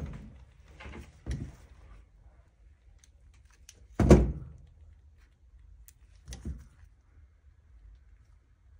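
A few short knocks and thuds of things being handled, the loudest and sharpest one about four seconds in, with weaker ones about a second in and around six and a half seconds.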